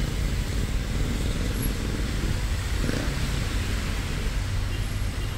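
Road traffic on a wet road: a steady noise of tyres and engines, with a vehicle passing near the middle.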